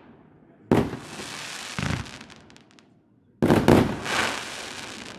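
TXB714 Hot Explosion 25-shot 1.9-inch fireworks cake firing its shells: a sharp bang about a second in, a smaller one a second later, and a close pair of bangs near three and a half seconds. Each fades into a hissing, crackling tail as the stars burn out.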